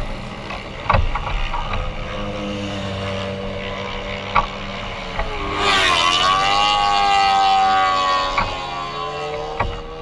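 A race car's engine at a circuit, passing and accelerating: the engine note dips sharply about six seconds in, then climbs and is loudest for the next couple of seconds before easing off, over a steady lower engine hum and scattered light clicks.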